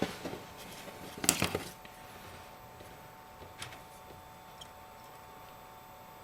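Small clicks and taps from iPhone 5 parts and repair tools being handled on a work surface, loudest about a second and a half in. A faint steady hum runs underneath.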